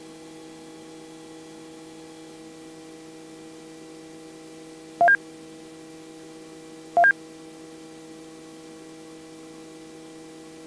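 Steady hum of a Robinson R44 helicopter gliding in an autorotation, heard through the cockpit intercom. Two short, sharp beeps come about two seconds apart midway through.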